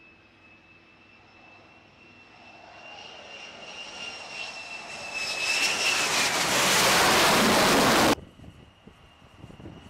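F-35C Lightning II's jet engine on approach: a high whine that swells into a loud rush of jet noise as the fighter comes over the ramp and touches down for an arrested landing. The whine dips in pitch as the noise peaks, and the sound cuts off suddenly just after eight seconds, leaving a fainter whine.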